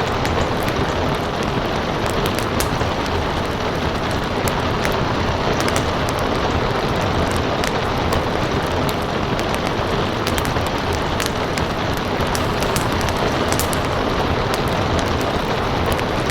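Steady rain hiss together with a wood fire crackling, its small sharp pops scattered irregularly throughout.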